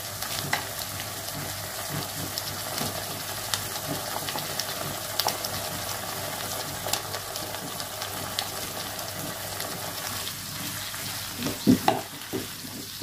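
Green beans and shrimp sizzling and bubbling in sauce in a wok, with a spatula scraping and clicking as fried shrimp are pushed out of a glass bowl into the pan. Near the end a few louder knocks as the spatula starts stirring in the wok.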